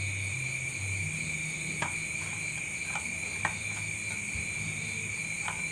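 A cricket trilling steadily on one high note, with three faint clicks from handling the TV chassis wiring.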